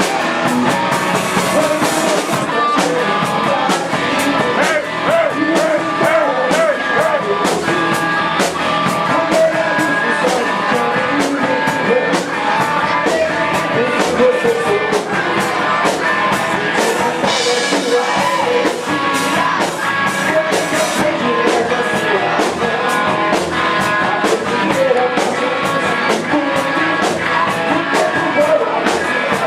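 Rock band playing live: distorted electric guitar, drum kit with steady cymbal hits and a sung vocal line.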